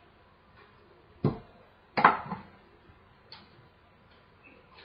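Sharp knocks and clatters from handling an apple and peeler at a steel sink and wooden cutting board while peeling apples: three knocks, the loudest about two seconds in.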